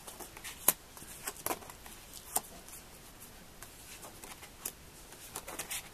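Tarot cards being handled and drawn from the deck: quiet, scattered light clicks and snaps of card against card.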